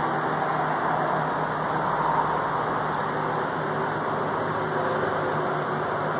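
Steady rushing background noise with a faint low hum, even throughout with no distinct knocks or events.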